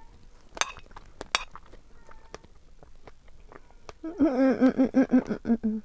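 Two sharp clinks of cutlery against a dish, then a loud, wavering vocal sound lasting almost two seconds near the end.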